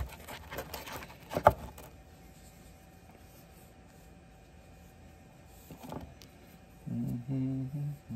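Cloth rubbing and a pocket knife being handled as it is wiped down, with a sharp knock about a second and a half in. Then it goes quiet, and near the end there is a short, low hum that breaks into pieces.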